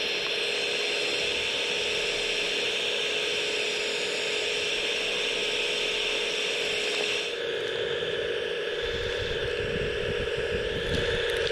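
The vacuum fan of a model suction excavator runs steadily with a whirring whine while its suction pipe draws soil from the ground. The sound shifts about seven seconds in, and a low rattling rumble joins in for the last few seconds.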